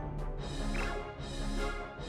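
Background music, an instrumental track with steady stacked tones, and a short high squeak just under a second in.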